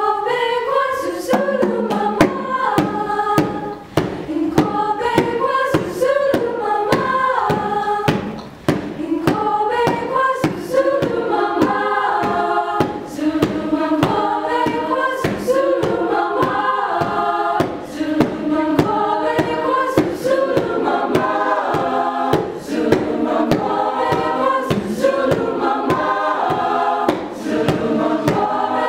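Background music: a choir of voices singing over a steady percussive beat.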